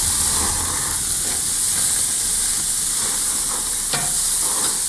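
Köfte and lamb sausages sizzling on a hot grill: a steady hiss, with a single short click about four seconds in.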